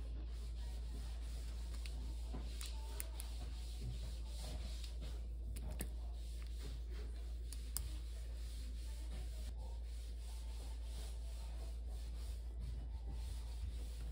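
Light rubbing and scratching sounds with a few small clicks, over a steady low hum.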